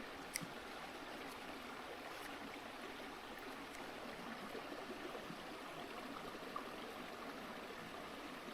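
River water running steadily and faintly, with a couple of small clicks.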